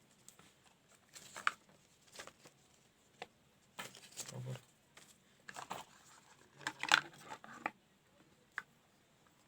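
Phone box and packaging being handled during an unboxing: irregular light clicks, taps and rustles, the loudest cluster about seven seconds in.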